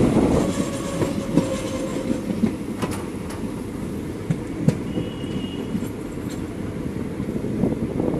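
Indian Railways passenger train running along the track, heard from an open door or window: a steady rumble with scattered sharp clicks from the wheels. A brief high whine comes about five seconds in, and the running sound slowly fades.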